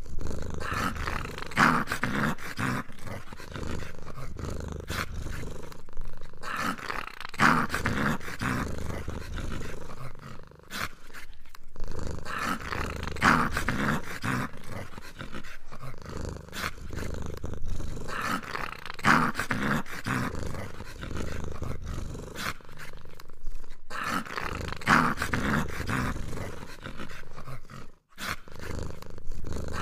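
Dinosaur roar sound effect, growling roars repeated in a loop about every six seconds.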